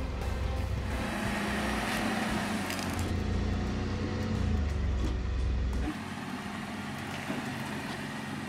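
Chevrolet Colorado ZR2 Bison pickup's engine running with a steady low drone, easing off about six seconds in.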